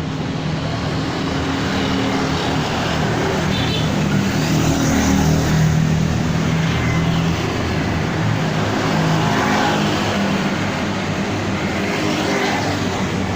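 Domestic cat purring steadily close to the microphone while being stroked.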